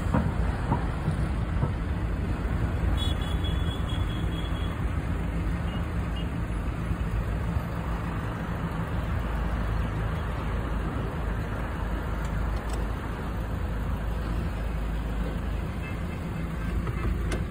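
Steady rumble of a car driving: road and engine noise.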